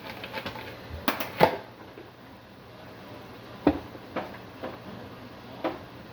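Plunger-type hand food chopper being smashed down on vegetables: irregular sharp plastic clacks, a loud pair about a second in, then single clacks every half second to a second.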